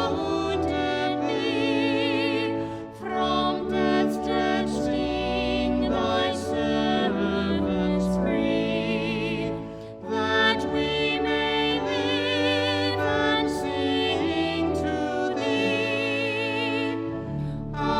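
Slow sacred music: a singing voice holding long notes with a wide vibrato, over sustained instrumental accompaniment, with brief breaks between phrases.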